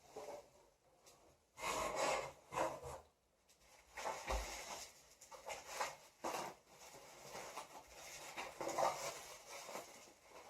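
Packaging being handled and unwrapped by hand: irregular rustling and rubbing strokes, with a short dull thud about four seconds in.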